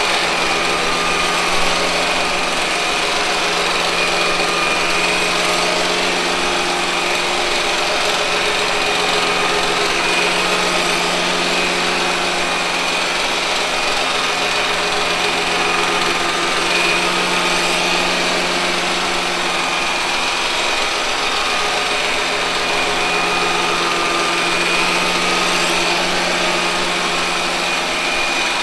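Robot vacuum cleaner running and spinning round in circles, its motors giving a steady whirr with a constant high whine and a low hum.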